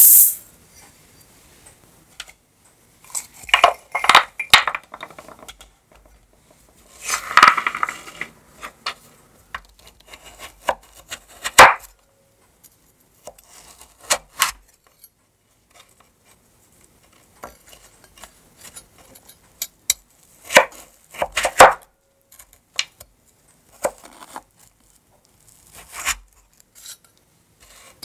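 A kitchen knife chopping candied winter melon on a bamboo cutting board: sharp knocks that come in short runs with pauses between them. In the first several seconds there are a couple of denser bursts of clatter.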